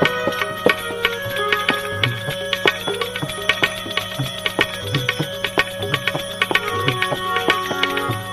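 Instrumental interlude of a devotional bhajan: tabla playing a quick, steady rhythm, with deep drum strokes, under held melody notes.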